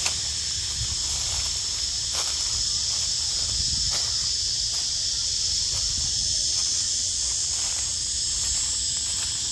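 Steady, high-pitched drone of an insect chorus, unbroken throughout, with a low rumble underneath.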